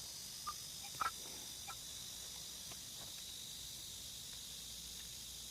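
Faint steady insect chirring, with three short, faint high blips in the first two seconds.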